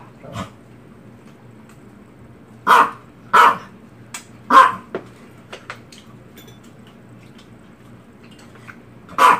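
Small white dog barking in single sharp yaps, about five in all and unevenly spaced: a pair near three seconds in, another a second later, and one more near the end.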